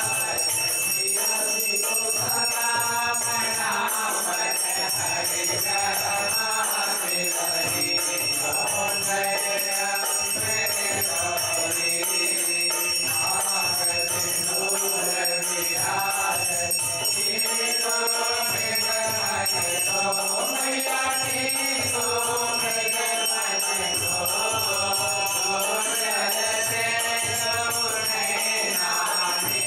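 Voices singing a Hindu aarti hymn over a continuous ringing of a brass hand bell, with a dholak drum beating along.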